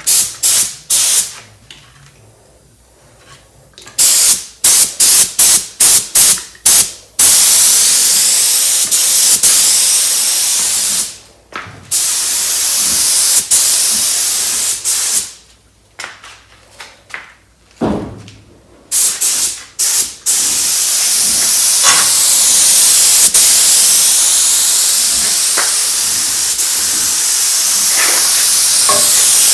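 Compressed-air paint spray gun hissing, first in a run of short trigger bursts, then in long steady passes with brief breaks between them.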